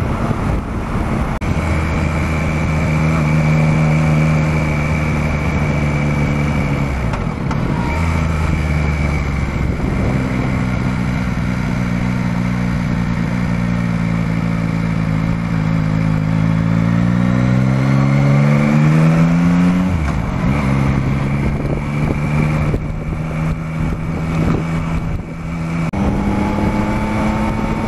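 Yamaha Tracer motorcycle engine running on the road, heard from the rider's helmet. The revs dip briefly about seven seconds in, then climb steadily for several seconds under acceleration and drop off sharply about twenty seconds in, after which the engine runs steadily.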